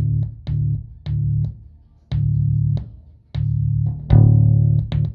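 Bass guitar playing through a Behringer BX4500H bass amp head, the same low note cutting in and out abruptly with a click at each break, then a run of quick crackles near the end: the intermittent signal of a faulty input jack.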